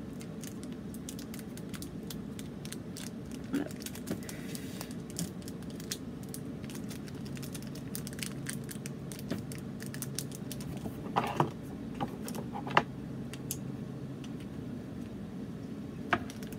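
Foil trading-card booster pack crinkling and crackling as it is handled and pulled open, in scattered sharp clicks, the loudest few a little past the middle. A steady low hum sits behind it.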